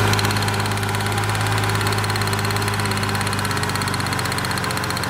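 Ford Mustang 3.9L V6 engine idling steadily with a misfire on cylinder 3 (code P0303), while the number 3 spark plug wire is being tested at the coil pack. The misfire was traced to a plug wire damaged by heat from the header.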